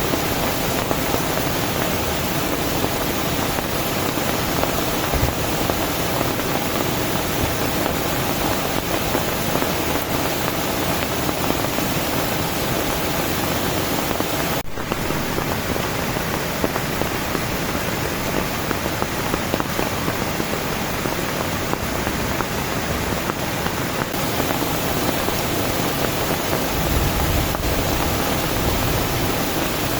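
Heavy tropical rain pouring steadily, a dense unbroken hiss. It drops out for an instant about halfway, and a low rumble comes in near the end.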